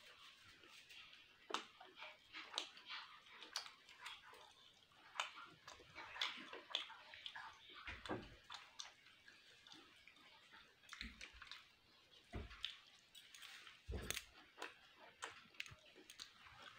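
Close-miked chewing of a person eating curry and rice by hand: faint, irregular wet mouth clicks and smacks, with a few soft low thuds.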